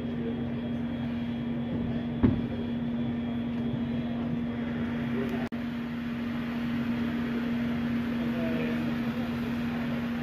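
Steady machine drone with a constant low hum tone, like an engine or fan running. One sharp knock about two seconds in, and the sound cuts out for an instant about halfway.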